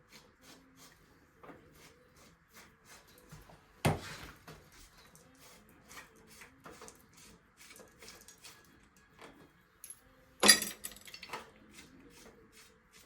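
Metal bike parts and tools clicking and clinking as a mountain bike's fork and front end are taken apart, with many small clicks throughout and two sharper knocks, one about four seconds in and a louder one about ten seconds in.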